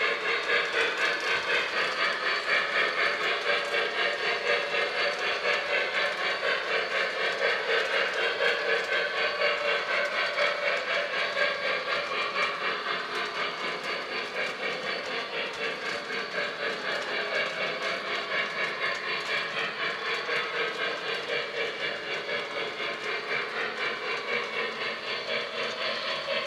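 Model 2-8-2 steam locomotive's sound system chuffing in a steady, quick rhythm as the locomotive runs with its freight train.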